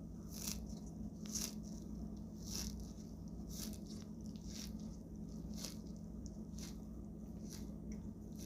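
Footsteps crunching through dry hillside vegetation at a walking pace, about one step a second.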